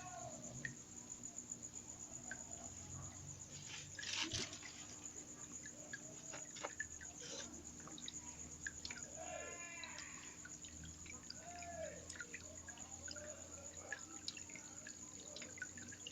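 Water dripping and trickling in a homemade evaporative cooler, with scattered small drips over a steady low hum from its fan motor and a faint steady high whine. A brief louder clatter comes about four seconds in.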